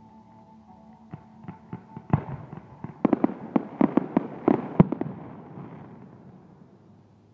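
Fireworks going off: sharp bangs begin spaced out about a second in, come thick and fast between three and five seconds in, then a crackling fizz dies away.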